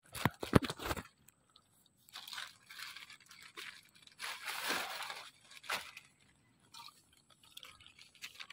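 Scattered rustling and crunching handling noise while catching mud crabs, with a few sharp clicks in the first second and irregular bursts of rustle later on.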